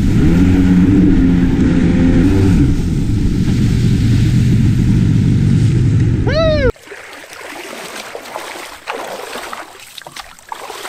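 Yamaha VXR 650 jet ski's two-stroke twin running hard over water, its pitch rising and falling with the throttle over a loud rush of water spray. It cuts off abruptly about two-thirds of the way in, leaving quiet shoreline sound with light splashing in shallow water.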